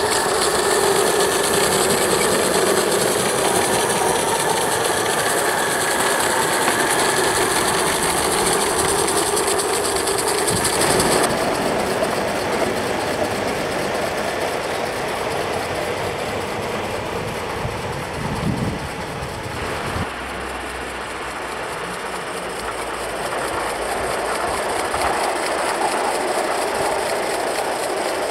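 Gauge 1 Accucraft Tornado live-steam locomotive, gas-fired, running under steam: a steady hiss and rush of steam with its running gear and wheels on the track. The high hiss drops away about eleven seconds in, and the sound shifts again about twenty seconds in.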